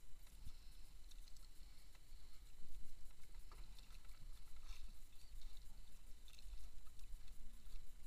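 Water lapping against the hull of a small wooden outrigger boat at sea, over a low, uneven wind rumble on the microphone. Light knocks come now and then.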